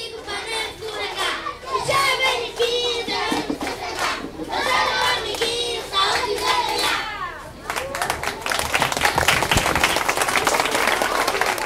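A group of children singing a song in Portuguese together while clapping along. About eight seconds in, the singing gives way to applause.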